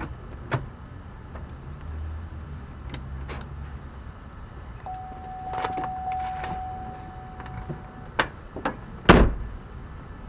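Clicks and knocks from work on a 2006 Buick Rendezvous door with a newly fitted inside handle. A steady tone sounds for about three seconds midway, and the loudest sound is a heavy thump near the end.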